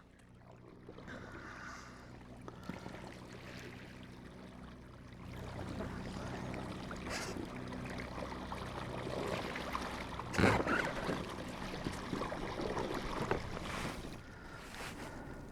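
An electric kayak trolling motor hums steadily as the kayak moves, louder from about five seconds in, with water splashing and trickling against the hull. A single sharp knock about ten and a half seconds in is the loudest moment.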